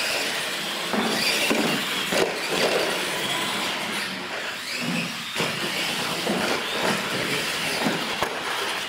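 Radio-controlled monster trucks racing across a concrete floor: a continuous whirring rush of motors, drivetrains and tyres that starts abruptly at the launch, with a few knocks along the way.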